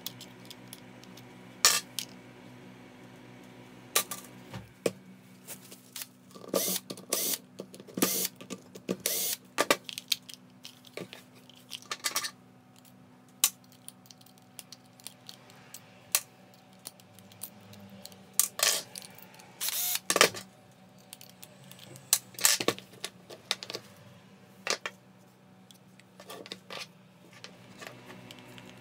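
Irregular clicks, scrapes and clinks of a thin metal pick and small parts against a Makita M693D 12V impact driver's metal hammer case and plastic housing as it is taken apart by hand, with busier clusters of clatter in the middle.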